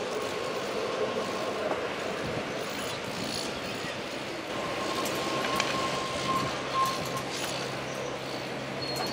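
Heavy construction machinery running on a building site: a steady engine drone with a few scattered sharp clicks, and a thin steady whine for a couple of seconds in the middle.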